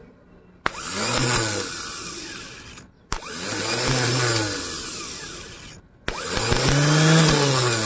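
Toyota Rush starter motor, off the car, whirring three times, each time spinning up at once and then winding down, as battery power is jumped straight to the motor past its solenoid switch. It spins freely, which shows the motor is good and the fault lies in the starter solenoid switch.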